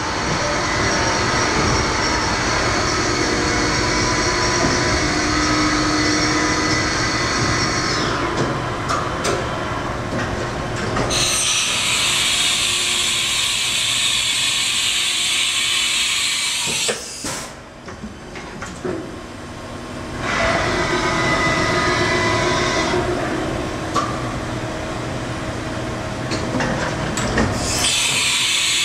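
Haas VF-6 CNC vertical machining center running under power: a steady mechanical running noise with a hiss. A high hiss comes in about eleven seconds in, the sound dips briefly around seventeen seconds, and the hiss returns near the end.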